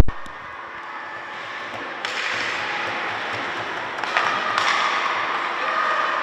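The sound cuts in with a sharp click, then the hubbub of an ice hockey game in a rink hall: play on the ice and spectators' shouting that grows louder toward the end, with a held high tone from about four seconds in.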